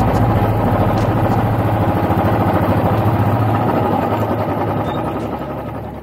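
Royal Enfield Classic 350 single-cylinder four-stroke engine running at low speed with a steady, rapid thump as the motorcycle rolls along a dirt track. It fades down near the end.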